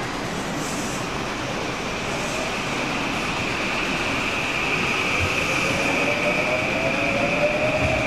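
JR East E235 series Yamanote Line electric train pulling away from the platform. A steady high whine strengthens, while a lower motor whine rises in pitch from about halfway through as the train gathers speed.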